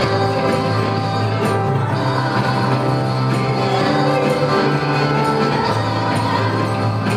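Live praise band playing a worship song: electric bass, drums and keyboard with singers on microphones, the bass holding long notes that change every second or two.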